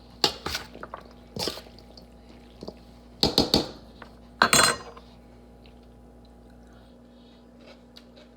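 Kitchen utensils knocking and clinking against dishes: a few scattered knocks, a quick run of three a little over three seconds in, and a louder, longer clatter about four and a half seconds in.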